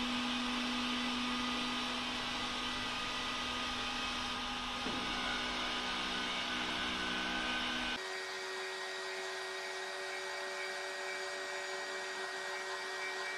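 Small electric motor whining steadily as a 1/10-scale RC rollback tow truck's winch pulls a model car up its tilted bed. The pitch shifts about five seconds in and jumps to a different, higher steady tone about eight seconds in.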